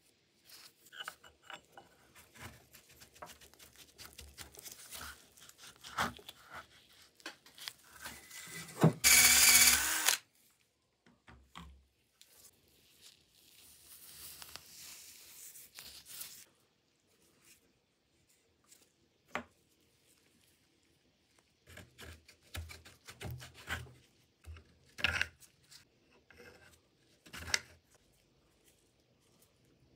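Workshop handling noises: scattered clicks, scrapes and rustling tears. There is a loud burst lasting about a second around nine seconds in, and a softer hiss for a few seconds shortly after.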